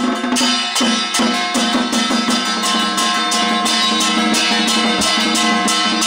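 Taiwanese temple ritual percussion: red barrel drums beaten in a fast steady rhythm, about three or four strikes a second, over steady ringing metal tones from gong and cymbals.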